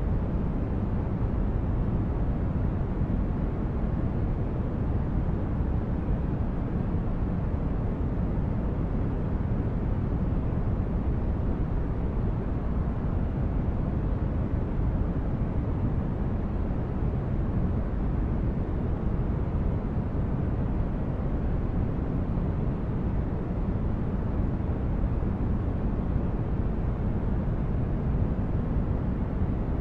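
Steady synthetic sleep-aid noise, deep and rumbling, with most of its energy in the bass and only a little hiss higher up.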